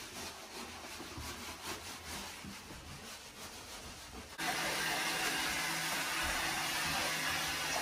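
Hands rubbing and scrubbing a wet Alaskan malamute's thick coat in a bathtub, a quiet rubbing sound. About four seconds in, a hand-held shower head comes on abruptly and sprays water over the dog in a steady hiss.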